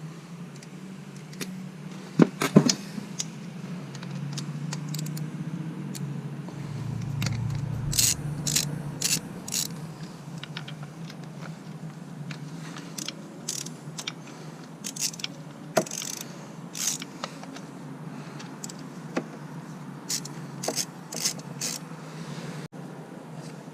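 Metal tools and small metal parts clinking and jingling in short clusters, with a few sharper knocks, as the oil filter covers are worked off a KTM 525 engine, over a steady low hum.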